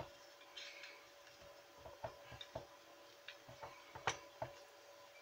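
Faint, scattered clicks and light knocks of wire leads and a small plastic-cased LED driver being handled while the wire ends are worked into screw terminals, the sharpest click about four seconds in, over a faint steady tone.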